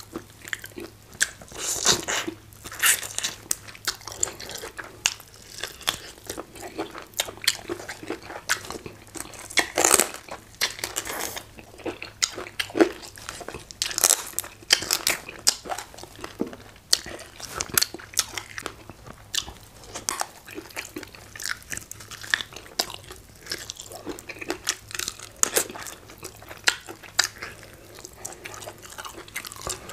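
Close-miked eating: chewing and biting on hard chicken, with fingers pulling the meat apart, heard as many short, irregular clicks and crackles.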